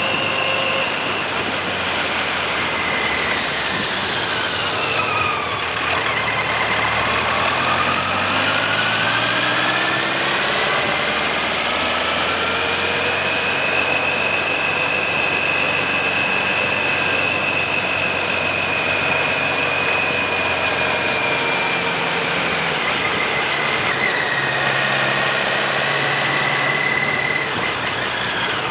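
Suzuki GSX1400 inline-four engine heard from on board over a steady rush of wind noise. Its pitch drops as the bike slows about five seconds in, climbs steadily as it accelerates, holds steady for several seconds, dips again about 24 seconds in and starts rising near the end.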